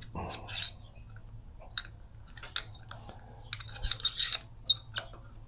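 Light metallic clicks and scrapes of a hand tool from the motorcycle's toolkit being fitted and worked in the spark plug well of a BMW R1100GS boxer cylinder head, with a small cluster of clinks about four seconds in.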